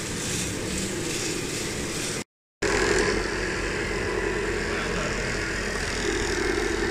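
A model gravel trommel screen turning, with sand pouring through it in a steady hiss. After an abrupt cut, an RC model excavator works in sand with a steady mechanical hum.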